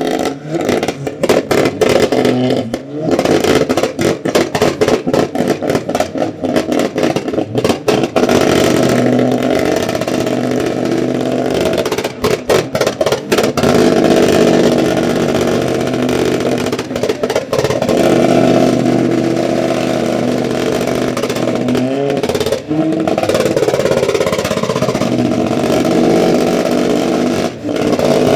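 Vehicle engine running loudly and being revved, its pitch and level rising and falling, with stretches of rapid pulsing.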